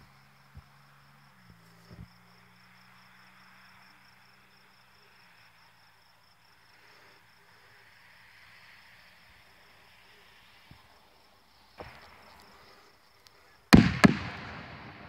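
Faint steady chirring of crickets, then near the end an aerial firework shell bursts with a sudden loud double bang and a fading rumble. A small thump comes a couple of seconds before the burst.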